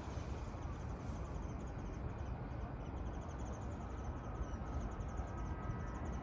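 Standing electric freight locomotive running steadily, a low rumble with a fast, faint high-pitched chatter above it.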